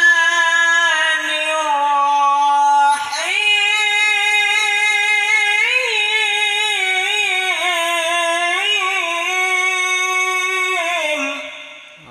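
A single unaccompanied voice singing long, drawn-out notes with wavering melismatic ornaments, stepping up in pitch about three seconds in and fading away near the end.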